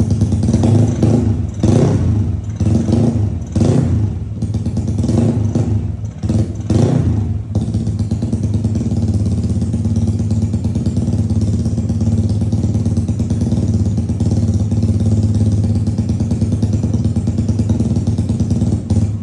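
Modified Yamaha Aerox scooter's single-cylinder engine warming up on its stand: a series of quick throttle blips in the first seven or so seconds, then it settles into a steady idle.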